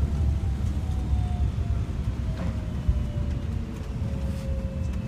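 Inside a moving tour coach: a steady low rumble of engine and road, with a faint whine that slowly falls in pitch.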